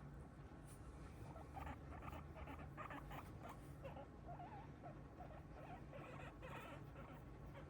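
Guinea pig making a string of faint, short squeaks from about a second in, over a steady low hum.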